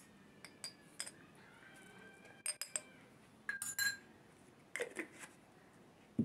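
Light clinks and taps of a spoon against metal kitchenware and spice containers, scattered through, several with a short ringing tone, and a sharper knock at the very end.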